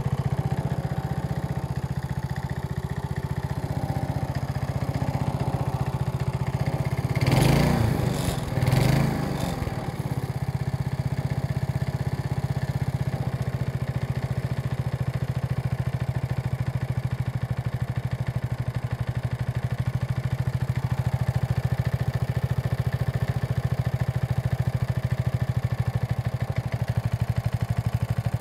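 Briggs & Stratton 3.5 HP single-cylinder four-stroke lawn mower engine running steadily at idle in -15C cold. Twice, about seven and nine seconds in, there is a brief louder surge, after which the steady running resumes.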